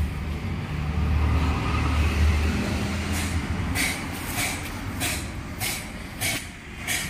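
A low rumble that fades about three seconds in, then a run of short, irregular scrapes and knocks as a tubeless car tyre is handled and turned over.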